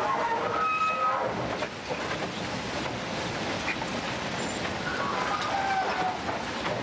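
Yellow railway track-maintenance machine running alongside the track ballast: a steady, noisy mechanical rumble and clatter. Short high squeals sound near the start and again about five seconds in.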